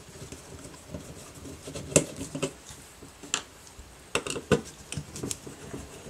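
Screwdriver undoing small screws on a metal avionics chassis: scattered small metallic clicks and taps, the sharpest about two seconds in and again near three and a half and four and a half seconds.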